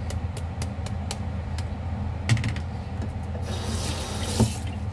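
Kitchen tap running briefly, for about a second past the middle, with a sharp knock before it and another as it stops. Light clicks and a steady low hum lie underneath.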